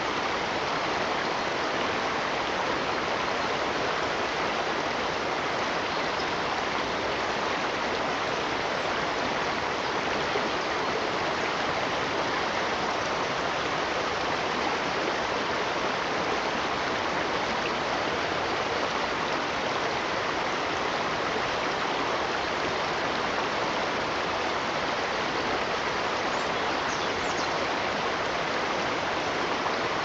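Steady, unbroken rush of running water in a stream, with a few faint high chirps near the end.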